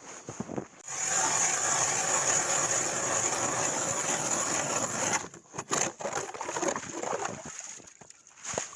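A steady mechanical whirring starts about a second in and cuts off suddenly about four seconds later, followed by a few scattered knocks and crunches.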